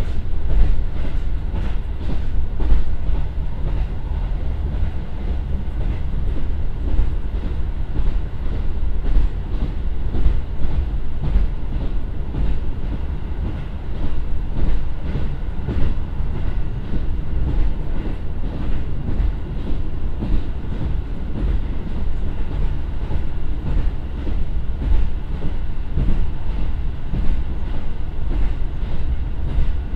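Inside the cabin of a JR Hokkaido KiHa 150 diesel railcar, powered by a Komatsu 450 PS turbo engine, running at about 80 km/h and slowing slightly. A steady low rumble of wheels on rail, with faint rail-joint clacks.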